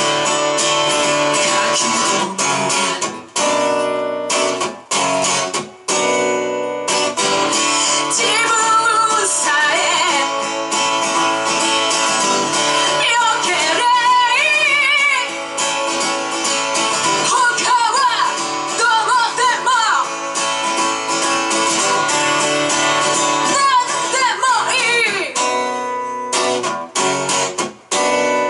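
A live rock band performing: strummed guitar chords that stop short several times in quick succession a few seconds in, then a voice singing over the guitar from about eight seconds.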